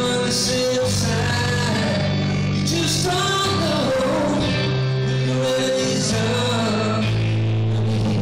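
Live rock music at concert volume: a man singing while playing electric guitar with band backing, with sustained low notes under the voice. The sound is rough and distorted from being recorded too close to the stage speakers.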